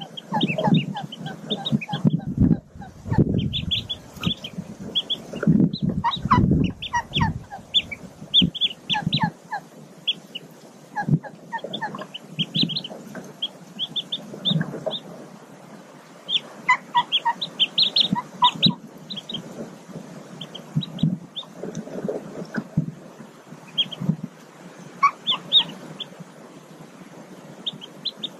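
Newly hatched mallard ducklings peeping in quick runs of short, high notes. Low soft clucking runs under the peeps and is heaviest in the first nine seconds or so.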